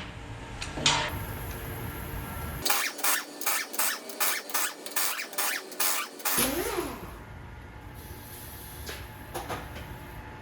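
Ratchet wrench clicking as it loosens the cylinder-head bolts on an LS1 V8, a steady run of sharp clicks about three a second for a few seconds starting near the middle.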